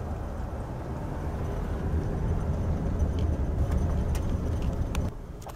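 Chevy high-top van driving slowly, a steady low engine and road rumble heard from inside the cabin, with a few light clicks; the rumble cuts off about five seconds in.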